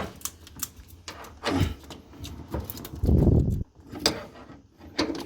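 Metal clicks and clanks of a spanner working the transit bolts on the back of a front-load washing machine, with a louder scraping rattle about three seconds in.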